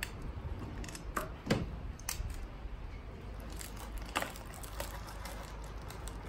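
Metal tongs and a serving spoon clicking and scraping against a foil-lined metal baking tray as tender slow-cooked goat meat is pulled off the bone. There are a handful of sharp clicks, over a steady low hum.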